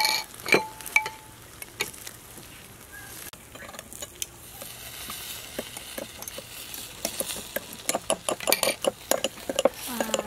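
Metal spoon clinking and scraping against ceramic and glass bowls while scooping grilled egg and sauce. There are a few sharp clinks in the first two seconds, one ringing briefly, then a quieter stretch and a quick run of clicks and scrapes near the end.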